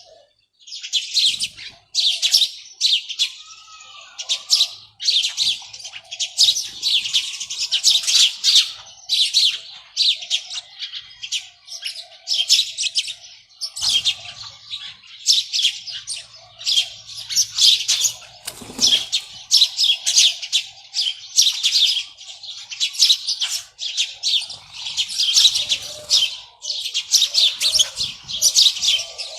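Small birds chirping busily: quick runs of rapid, high chirps, one after another with only short gaps.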